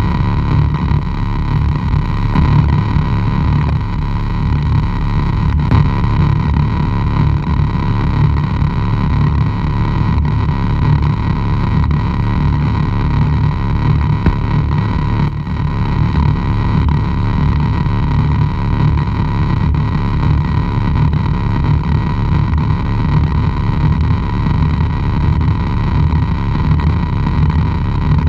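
Noise music from a chain of effects pedals: a loud, dense, fluttering low rumble under a steady mid-pitched whine, with faint thin high tones above.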